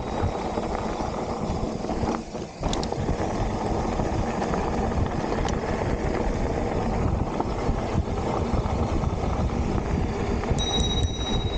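Mountain bike rolling fast down a dirt trail: wind buffeting the microphone over the rumble and rattle of 27.5-inch plus tyres on the ground, with a brief lull about two seconds in. A thin, steady high whine starts abruptly near the end.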